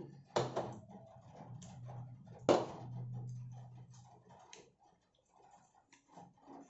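Two sharp knocks of a drinking glass set down on a glass tabletop, about a third of a second in and again about two and a half seconds in, the second the louder, with light clicks of plastic cutlery on a paper food tray over a low hum.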